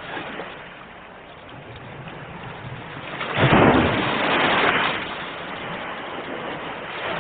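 Ocean waves breaking on the shore: a steady wash of surf, with one wave crashing louder about three and a half seconds in and rushing for a second or two before easing back.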